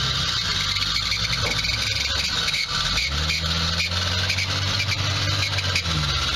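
Off-road 4x4's engine running at low revs, its note stepping up about three seconds in and falling back near the end.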